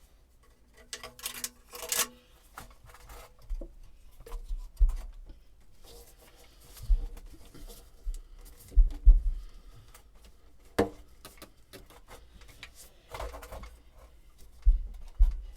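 Irregular handling noise as a plastic sump-pump discharge pipe is worked onto a rubber check valve and its clamp: scattered clicks, rubbing and scraping, with a few short scrapes about a second in and several dull low thumps through the rest.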